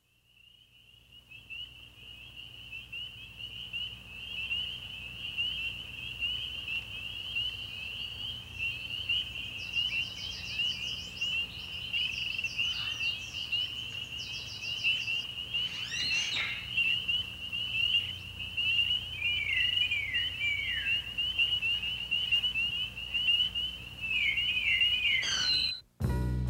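A steady, high-pitched trilling chorus of calling animals that fades in at the start and stops abruptly at the end, with a few short bird chirps, some of them falling in pitch, over it and a brief rasp partway through.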